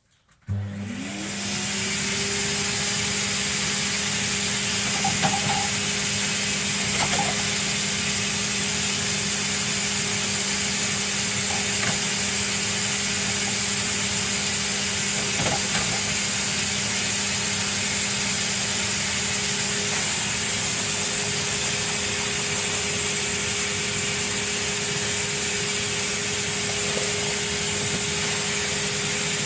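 Vacuum cleaner switching on, its motor whining up to speed within the first second, then running steadily with a high hiss. A few faint clicks come through over it.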